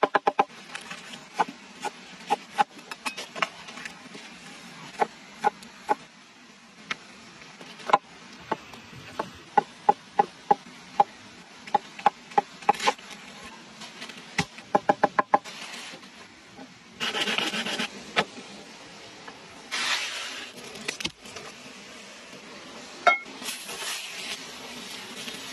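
Cleaver chopping red onion and then red pepper on a wooden cutting board: sharp knocks of the blade on the wood, irregular and sometimes in quick runs. About two-thirds in, the food goes into a hot pan over an open fire, with two loud bursts of sizzling hiss as the pan flares, then a lighter hiss.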